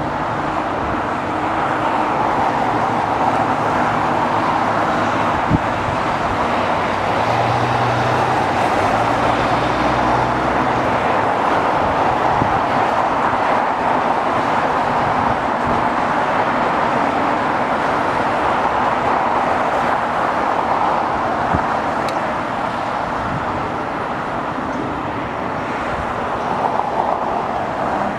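Steady distant roar of airport engines and traffic, with a low hum swelling for a few seconds about a third of the way in.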